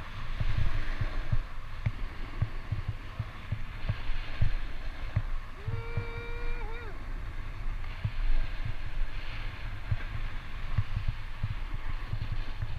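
Skis hissing and scraping over groomed snow on a downhill run, with wind buffeting the microphone in uneven low thumps. About six seconds in, a single held note lasts about a second and bends downward at its end.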